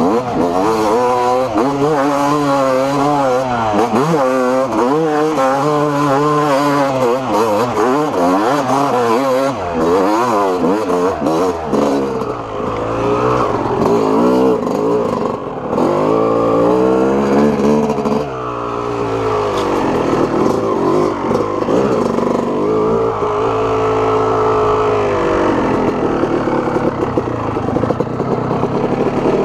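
Yamaha YZ250 two-stroke single-cylinder engine being ridden hard, revving up and down continually with the throttle, its pitch rising and falling every second or so.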